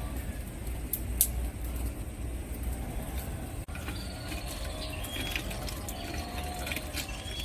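Small wood fire crackling in a clay stove, with a few sharp snaps about a second in, over a steady low rumble.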